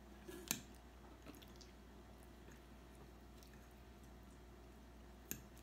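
Someone drinking from an aluminium soda can: near silence with small mouth and swallowing noises, a sharp click about half a second in and a smaller one near the end.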